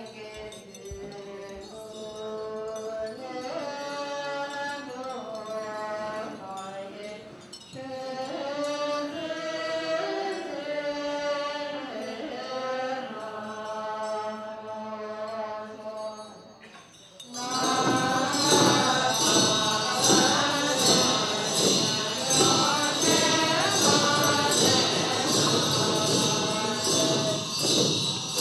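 Melodic devotional chanting for the first part. About seventeen seconds in, loud percussion with a bright, fast, even beat comes in under the continuing singing.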